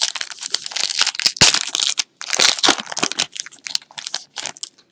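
A trading card pack's foil wrapper being torn open and crinkled by hand, dense crackling for about three seconds, then a few scattered crinkles that die away near the end.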